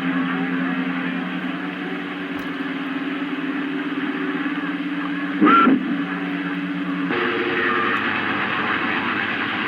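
CB radio on channel 28 receiving distant skip: faint, garbled voices under static with steady heterodyne hum tones. About halfway through there is a brief loud burst with a short upward chirp, and about seven seconds in the hum tones change as a different carrier comes in.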